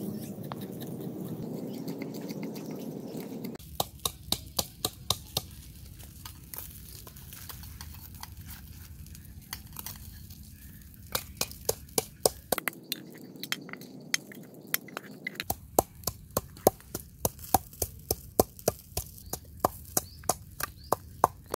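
Knife chopping scallions on a cutting board: runs of sharp chops at a fairly even two to three a second, starting a few seconds in, with a break in the middle.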